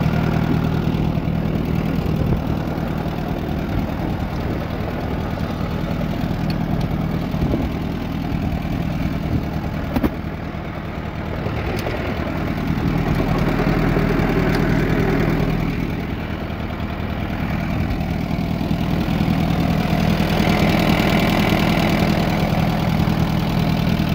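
An engine idling steadily, with a single sharp click about ten seconds in.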